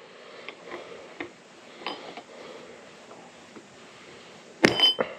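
Steel CV joint parts being fitted onto a splined side-by-side axle shaft: a few light metal clicks, then a sharp ringing metallic clink near the end.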